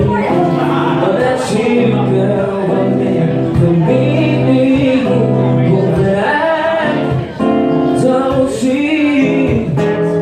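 A man singing a slow ballad into a microphone over his own strummed acoustic guitar, the voice sustaining long notes over the steady guitar chords.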